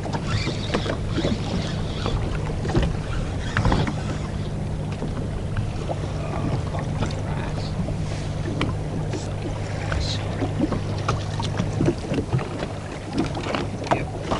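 Sea-Doo Fish Pro 170 jet ski's Rotax three-cylinder engine idling with a steady low hum, under small waves slapping the hull, wind on the microphone and scattered knocks and splashes.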